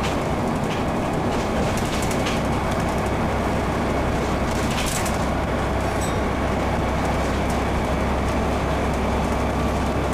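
Scania N94UD bus heard from inside the passenger saloon while under way: the engine and road rumble run steadily, with occasional sharp rattles and clicks from the interior fittings.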